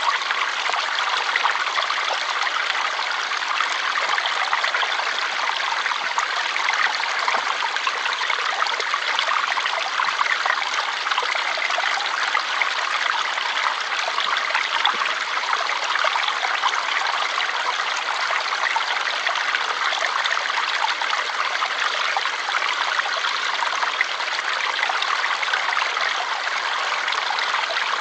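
Flowing water: a steady, even rush with no deep rumble and no breaks.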